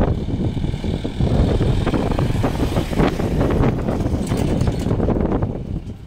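Wind rumble buffeting the microphone, mixed with a road vehicle driving past.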